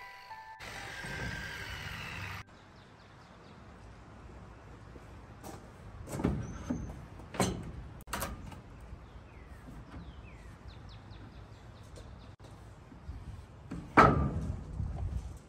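Pressure-treated lumber boards being handled and shifted on a wooden flatbed deck, with a few separate knocks about halfway through and one louder wooden thump near the end.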